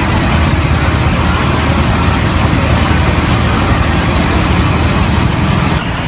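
Heavy engine running steadily with a low rumble, most likely the fire truck's diesel engine working at the fire scene, under general street noise. The noise drops a little near the end.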